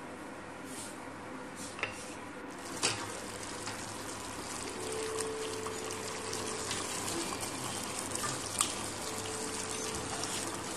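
Chicken pieces simmering and bubbling in the water they have released in a steel pot, with a few sharp knocks.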